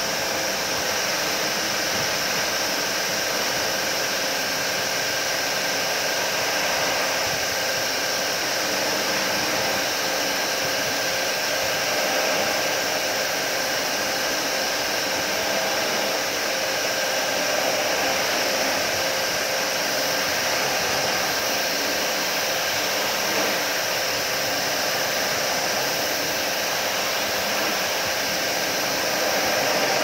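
Pressure washer running steadily, its jet of water spraying the finned coil of a window air conditioner to clean it, a constant hiss with a steady machine hum under it.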